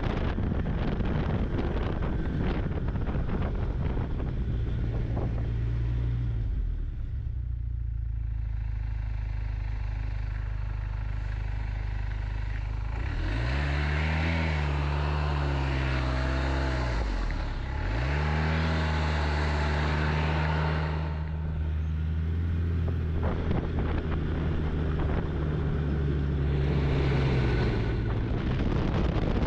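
Snowmobile engine running under way with a rushing noise over it. About halfway through the engine revs up, falls away briefly as the throttle is let off, then climbs and holds steady again.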